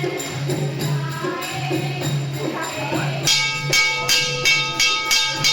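Bhajan-kirtan devotional music: group singing over a steady drone, joined about three seconds in by jingling hand percussion struck about three to four times a second.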